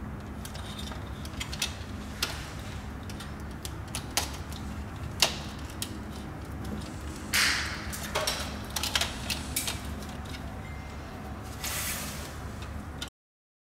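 Sharp clicks and snaps of pliers and stiff copper earth wires being worked into a plastic earth terminal bar in a consumer unit, over a steady low hum. There is a short scraping rustle about seven seconds in and another near the end, and the sound cuts off abruptly just before the end.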